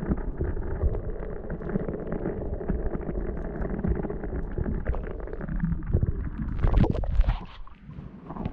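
Muffled rushing and rumbling of water heard through a camera held underwater. A few sharper splashes come about seven seconds in, and then it goes quieter.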